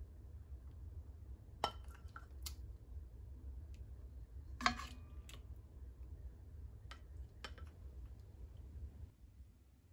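A ladle clinking against a pot and ceramic bowl as pot-au-feu is ladled out: about six short clinks, the loudest about a second and a half in and near the middle, over a steady low hum.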